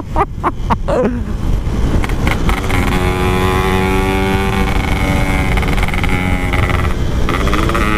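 Yamaha RX-King 135cc two-stroke single running on the road through a Packing Power exhaust, with wind rumbling on the microphone. Its pitch wavers in the first second as the throttle changes, holds steady for several seconds, then rises near the end as the engine revs up.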